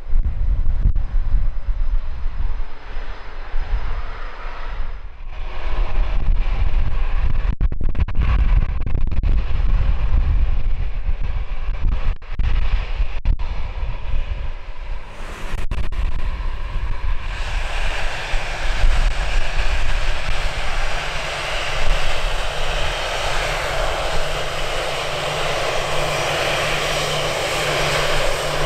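Jet aircraft engines running as planes taxi, heard through heavy wind rumble on the microphone. About 17 seconds in, the sound changes to a steadier, louder jet engine noise as an airliner taxis close by.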